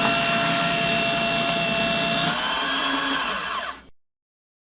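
Paper shredder running: a steady motor whine over a rough grinding noise, dipping slightly in pitch a little over two seconds in, then cutting off abruptly about four seconds in.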